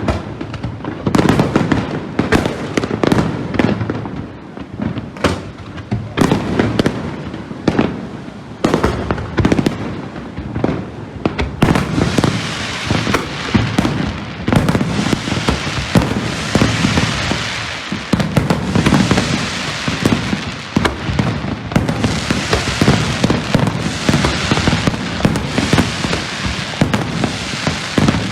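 Fireworks display going off: many separate bangs in the first part, then from about twelve seconds in a dense, continuous barrage of overlapping bursts and crackle.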